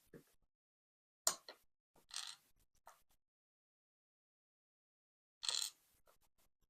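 Small metal lock parts being handled: three short, faint clicks and scrapes, about a second in, about two seconds in, and near the end, with near silence between.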